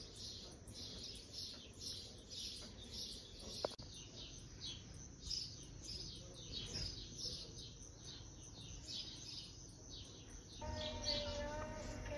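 Small birds chirping outdoors, a steady run of many short, high chirps. Music with singing comes in near the end.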